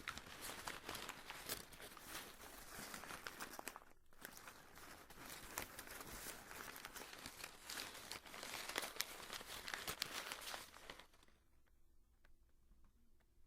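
Paper being torn and crinkled by hand, a close, dense crackle of small rips with a brief break about four seconds in. It stops a couple of seconds before the end, leaving it nearly quiet.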